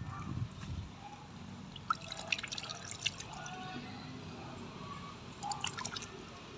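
Water dripping and light splashing, in short clusters of sharp wet clicks about two seconds in and again near the end.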